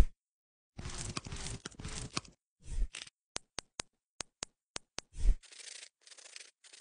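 Foot-care sound effects for an animated treatment. Rough scraping strokes come first, then a run of about seven sharp snaps from nail clippers cutting a toenail, and then short rasping strokes of a nail file. Low thumps mark the start, about three seconds in and just past five seconds.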